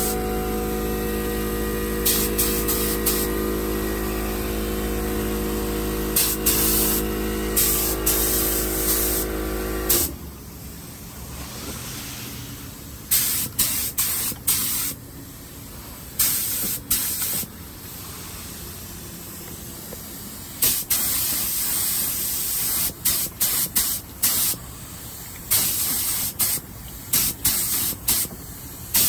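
Dupli-Color aerosol spray paint can spraying in short hissing bursts as a red coat is laid on the upper control arms, about a dozen passes with brief gaps between. A steady electrical hum runs underneath and cuts off about a third of the way in.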